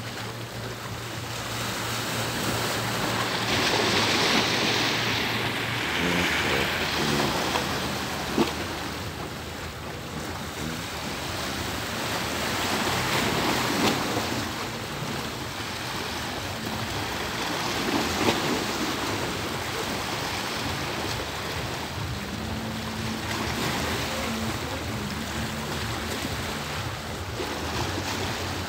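Sea waves washing and lapping, swelling in surges every few seconds, over a low steady hum.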